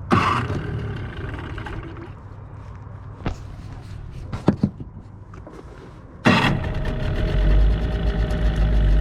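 Nissan Tohatsu 8 HP outboard motor being pull-started on its first run of the season after sitting: a brief burst of engine sound right at the start fades out, then about six seconds in the motor catches and keeps running steadily.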